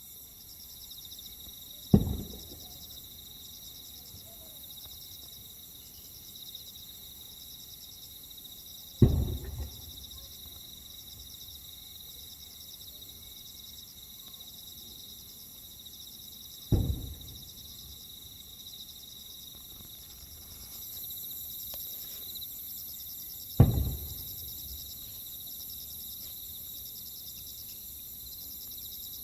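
Aerial firework shells bursting, four single booms about seven seconds apart, each with a short low rumble after it. Steady high insect chirring runs underneath.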